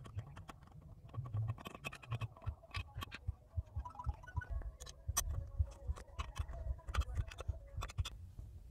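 Scattered light clicks and scraping of a T45 Torx key and socket working on the bolts of an EGR valve assembly, with the metal parts being handled, over a low rumble.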